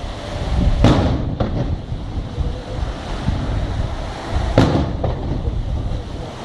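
Fireworks shells bursting in the air: two sharp bangs, about a second in and again past the four-second mark, with a fainter pop between them, over a steady low rumble.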